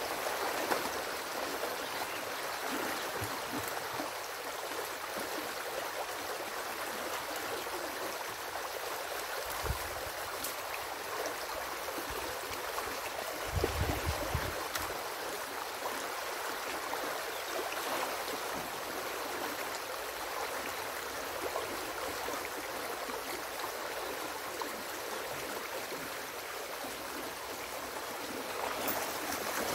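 Stream water rushing steadily through an opened beaver dam, with short low thumps about ten seconds in and again around fourteen seconds.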